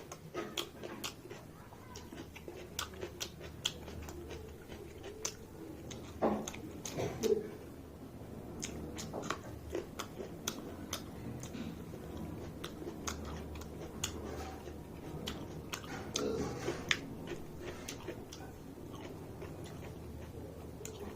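Close-up mouth sounds of a person eating mutton and rice: chewing with many short, wet lip-smacking clicks.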